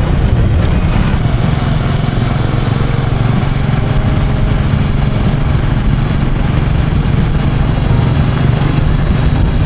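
A vehicle's engine running steadily while moving along a road, with a constant low drone.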